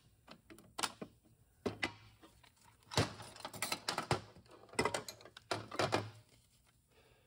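Clutch plates from a Ford 4R70W transmission's direct drum clinking and clicking against each other and the drum as they are lifted out and handled. The plates are coned steels and frictions that spring up out of the drum.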